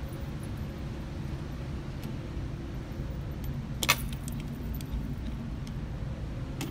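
Small metallic clicks and clinks of brass 9mm cartridges being handled while a Glock pistol magazine is loaded by hand, with one sharper metallic clack about four seconds in, over a steady low rumble.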